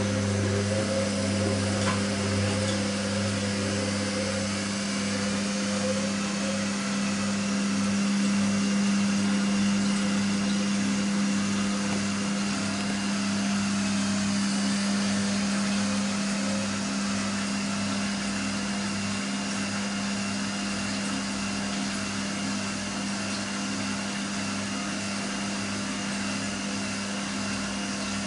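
Siemens 6127 front-loading washing machine on its Easy Care final spin: a steady high-speed hum with a low throbbing drone underneath. The machine shakes somewhat on the spin because it no longer sits fully stable after being moved and re-levelled.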